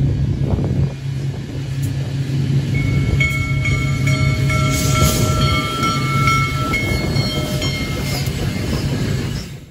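A train running past: a diesel locomotive's steady low engine rumble, joined from about three seconds in until near the end by several steady high tones.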